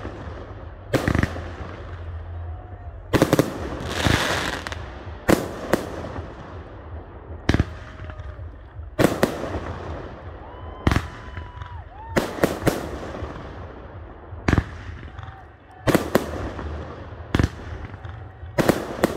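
Fireworks display: aerial shells bursting in a run of sharp bangs, roughly one every second or two and some in quick pairs. Some bursts trail off into a crackle.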